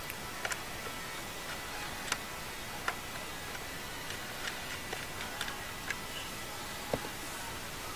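Scattered light clicks and taps, about eight over several seconds, over a steady faint hiss: a screwdriver and small metal parts working on the pulley brackets inside an upright vacuum's base.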